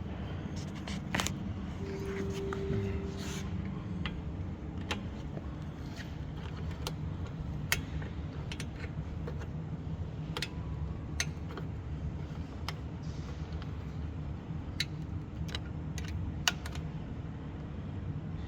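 Scattered light metallic clicks and clinks of screws and an Allen wrench being worked while the controller console is fitted to its mounting holes, over a steady low hum.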